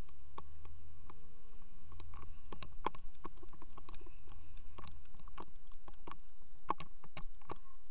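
Irregular clicking and rubbing handling noise on a camera carried by someone walking, with a low rumble underneath that fades out about five seconds in.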